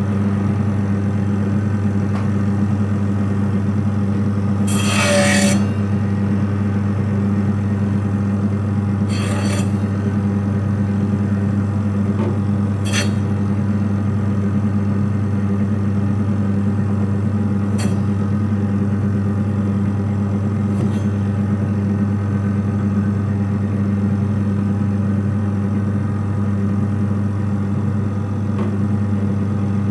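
Electric chicken cutting machine running with a steady low hum. Several brief rasping scrapes come as pieces of chicken are fed through its rotating blade, the loudest about five seconds in.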